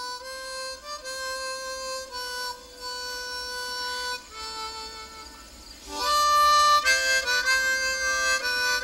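Opening title music: a slow melody of long held notes, getting much louder about six seconds in.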